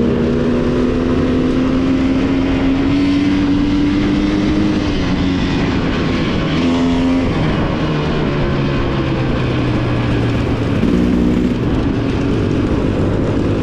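Off-road motorcycle engine running under way. Its pitch climbs steadily for about five seconds, then drops and rises again several times as the throttle changes.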